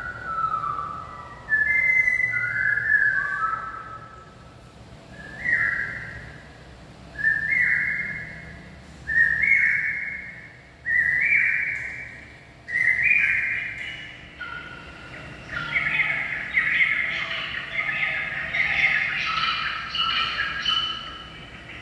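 Recorded birdsong. It opens with falling whistled phrases of a Malabar whistling thrush, then a common hawk-cuckoo (brainfever bird) repeats its three-note 'brain-fever' call about every two seconds, each repeat pitched higher than the last, before a denser jumble of varied whistled calls near the end.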